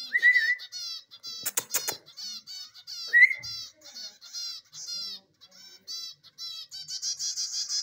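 Young chicks peeping: repeated short, high chirps with a few quick sharp clicks about a second and a half in, and a fast, unbroken run of peeping near the end.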